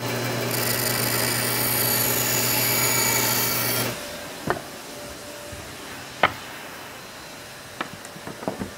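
A power tool's electric motor runs steadily at one pitch for about four seconds, then stops. Four or five sharp knocks follow as the plastic tube and its wooden stand are handled.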